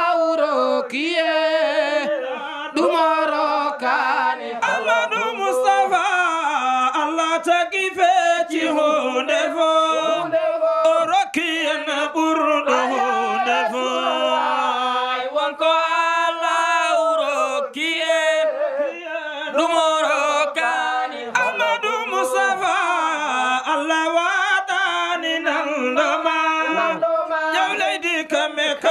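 A group of men chanting a Sufi devotional song together without instruments, one voice through a handheld microphone, with long held and sliding notes.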